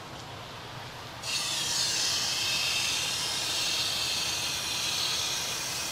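Garden hose spray nozzle opened about a second in, then a steady hiss of water spraying onto potting soil in a large plastic bucket.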